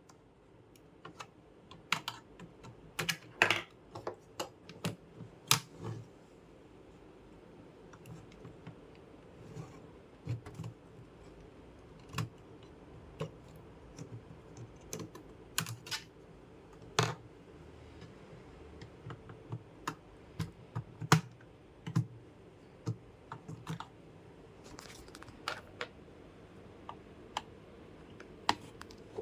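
Irregular sharp clicks and taps, scattered with gaps, a few louder ones in the first few seconds.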